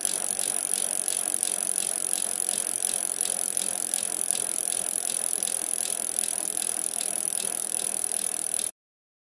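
Fat bike riding along a packed snow trail: a steady noise of the wide tyres on snow and the moving bike, with faint regular ticks, cutting off abruptly near the end.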